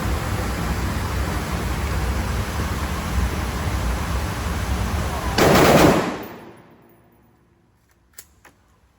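Steady loud rushing noise, broken about five and a half seconds in by a loud burst of gunfire from a binary-trigger AR pistol that rings out and fades over about a second. Two faint clicks follow near the end.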